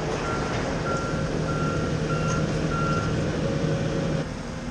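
Volvo high-reach demolition excavator's travel alarm beeping, a little under two beeps a second, over its running diesel engine. The beeping stops about three seconds in, and the engine sound drops about a second later.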